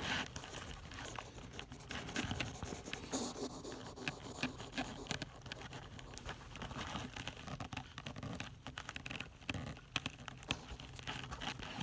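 Pet hedgehog scrabbling about, with light scratching, scraping and pattering and many small scattered clicks.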